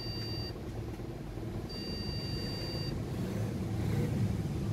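Motherboard POST beeper giving long, steady high-pitched beeps, about a second each: one ends half a second in and another sounds from about two to three seconds in. It is the repeating beep code the technician calls a memory beep, as if the PC had no RAM. A steady low hum runs underneath.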